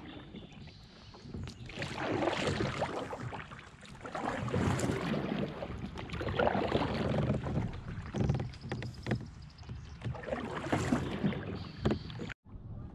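Water splashing and lapping against a kayak hull under way, with wind on the microphone; the noise swells and fades every couple of seconds. The sound drops out briefly near the end.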